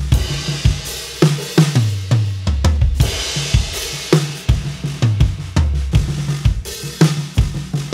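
Acoustic drum kit played in a steady groove: kick drum, snare and cymbals struck several times a second, with a low bass line underneath.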